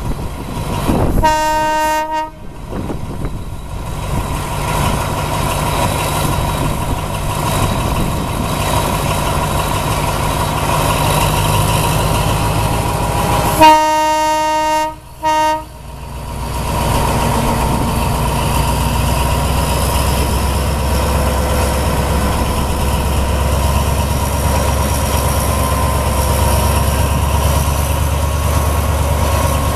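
Diesel-electric locomotive of the State Railway of Thailand sounding its horn three times while its engine runs steadily. There is one blast about a second in, then a longer blast around the middle, followed at once by a short toot.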